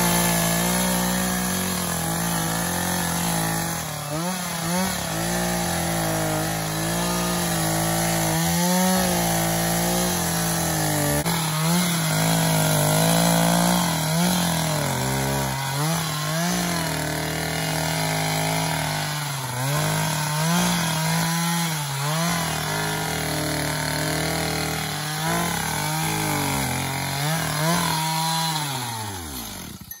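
Two-stroke chainsaw running at high revs while cutting through tree roots in a wet, muddy stream bed; its pitch sags again and again as the chain bogs into the roots and climbs back. Near the end the engine winds down with a falling pitch.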